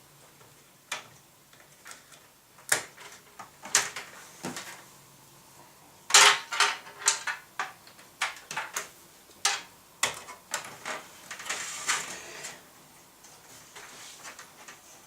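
Irregular metallic clicks, knocks and clatter as a hard disk and CD-ROM drive are screwed into a computer case, with the loudest cluster of knocks about six seconds in.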